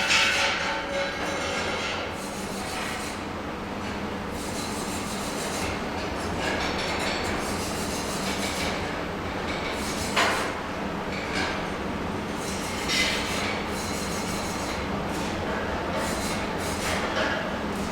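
Steady welding-workshop noise, a continuous rumble and hiss with a hum, broken by a few short metallic knocks, the sharpest about ten seconds in.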